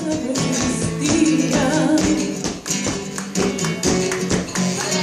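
Live flamenco: a singer's voice and a Spanish guitar, cut through by many sharp percussive taps from the dancer's footwork.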